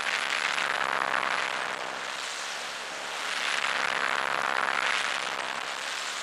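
A steady electronic rushing noise with faint held tones under it, swelling a little about halfway through.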